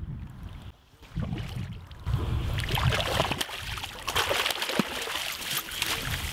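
A hooked fish thrashing and splashing at the water's surface as it is drawn into a landing net, with choppy splashes from about two and a half seconds in. Wind rumbles on the microphone underneath.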